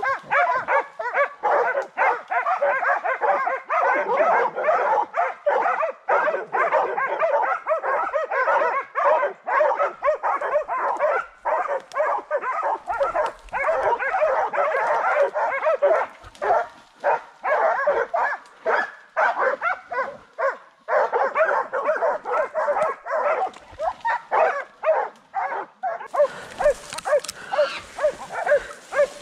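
A pack of boar-hunting dogs barking and yelping in quick, overlapping succession, baying in pursuit of a wild boar. Near the end a hiss joins in.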